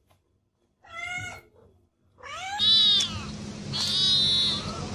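Cats meowing: one short meow about a second in, then a tabby kitten giving two loud, high-pitched meows over a steady low hum and background noise.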